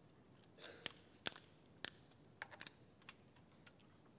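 A few faint, sharp clicks and a soft crinkle as a plastic water bottle is capped and handled close to a lectern microphone.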